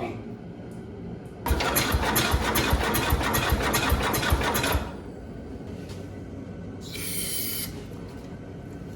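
Cub Cadet 127's single-cylinder Kohler engine being cranked by its starter for about three seconds with a fast, even rhythm of strokes, not catching, then stopping abruptly. A short hiss follows a couple of seconds later. The no-start goes with fuel being pushed back out of the carburetor, which the owner takes for ignition timing or points set wrong, or else a valve problem.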